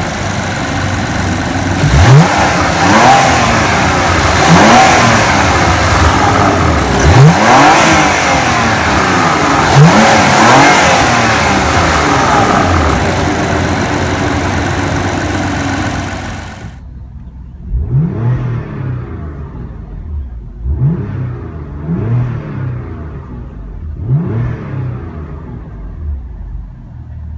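2016 Porsche Macan Turbo's 3.6-litre twin-turbo V6 revved again and again in Sport Plus mode while standing still, heard at the open engine bay: a quick rev up and back down every two to three seconds. About two-thirds of the way in, the sound turns muffled and quieter, as heard from inside the cabin, and a few more revs follow.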